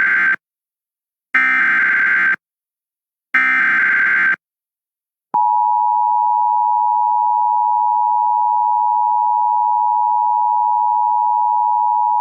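Emergency Alert System SAME header: the tail of one digital data burst, then two more, each about a second long with a second's gap. About five seconds in, the steady two-tone EAS attention signal starts and holds, warning of the National Weather Service severe thunderstorm message to follow.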